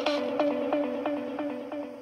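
Instrumental music: a plucked string instrument repeating quick notes, about four a second, on the same pitches, slowly fading out.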